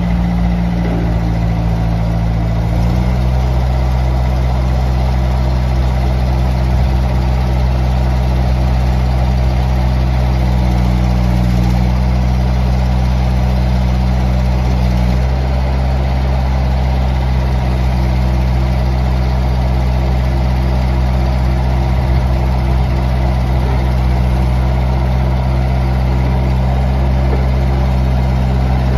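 The 46 hp Kubota diesel engine of a 2005 Bobcat S150 skid steer loader running steadily. Its note shifts slightly about three seconds in and again about halfway through.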